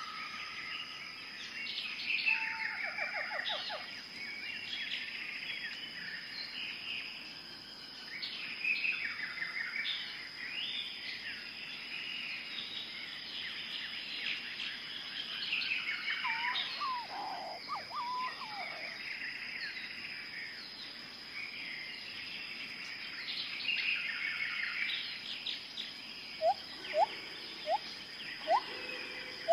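Jungle ambience: many birds chirping and trilling over one another above a steady high-pitched drone. Near the end, a series of short rising whistles repeats about twice a second.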